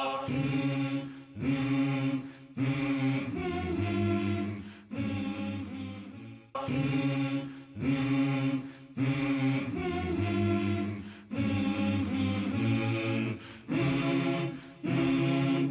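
Background music: voices chanting a refrain of short repeated phrases like "ahe ho ya", with brief breaks between phrases.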